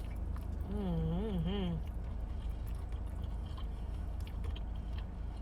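Close-miked chewing and biting into chicken wings, with small wet clicks, and a wavering hummed "mmm" about a second in. A steady low hum from the car's air conditioning runs underneath.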